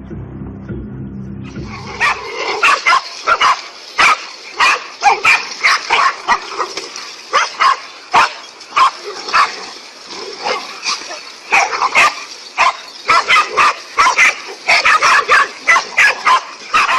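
Dog-like barking and yipping, many short sharp calls in quick succession, starting about two seconds in as music stops.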